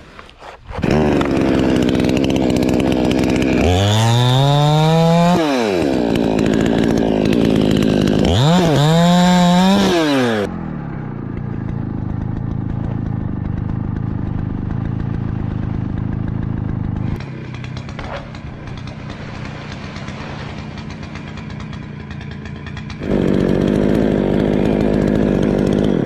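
Petrol chainsaw running, revved up and back down twice in the first ten seconds, then running more quietly at a lower speed, and revved up again near the end.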